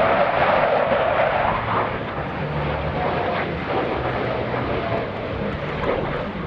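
Jet noise from Blue Angels F/A-18 Hornets flying past, a steady rushing noise that is loudest for the first two seconds and then eases a little.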